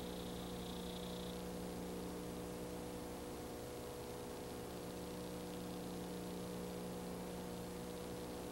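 Steady electrical hum with a constant hiss and no other sound, with a faint high whine in the first second or so: the bare noise floor of a transferred silent film.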